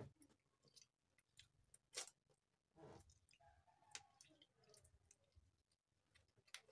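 Faint eating sounds from someone eating rice and fried fish by hand: scattered soft clicks and smacks of chewing. The sharpest click comes about two seconds in.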